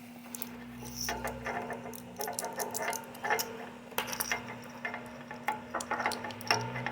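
Irregular clicks, ticks and short scraping rattles of small hand tools working a relay loose from a scooter controller circuit board, over a steady low hum.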